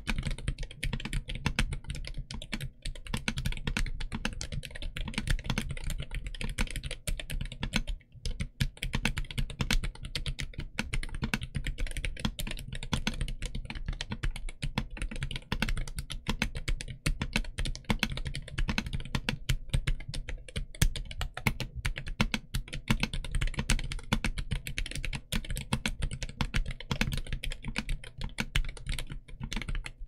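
Continuous typing on a Royal Kludge RK N80 low-profile mechanical keyboard, its LoPro Jerzi Brown switches and DS ABS low-profile keycaps making a rapid run of keystrokes, with a brief pause about eight seconds in.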